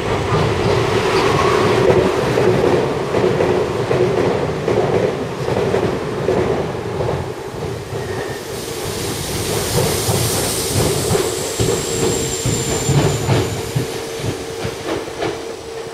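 Nagoya Municipal Subway 3050 series six-car electric train pulling out and running past the platform, its wheels clicking over rail joints over a steady hum. From about nine seconds in a high hiss joins, and the sound slowly grows fainter as the train draws away.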